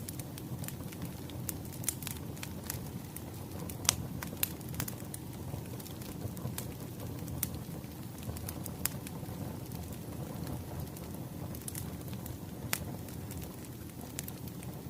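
Burning firewood crackling: a steady low rumble of flames with irregular sharp pops and snaps from the logs.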